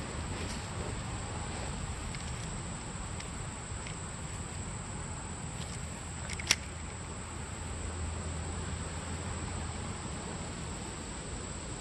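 Outdoor ambience by a woodland creek: a steady high insect drone over a low hiss, with one sharp click about six and a half seconds in.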